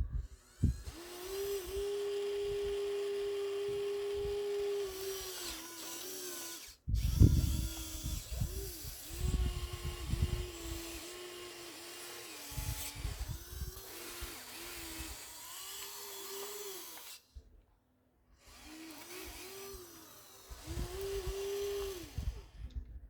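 Small electric motors of radio-controlled construction models whining as they work. The pitch holds, dips and rises, and the whine stops and restarts in short runs, over irregular low rumbles and knocks of material being moved. The sound cuts out completely twice for a moment.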